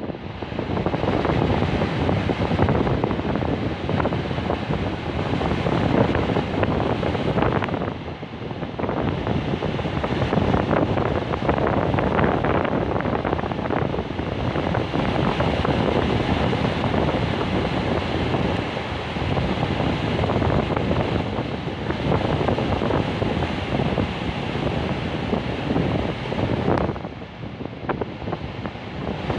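Sea waves breaking and washing on the shore in a continuous rush that swells and eases, with brief lulls about eight seconds in and near the end. Wind buffets the microphone.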